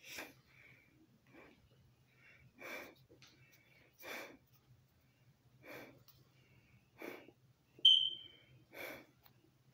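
Close breathing at the microphone, one breathy puff about every second and a half. A single short, high squeak with a falling tail comes near the end and is the loudest sound. A faint steady low hum runs underneath.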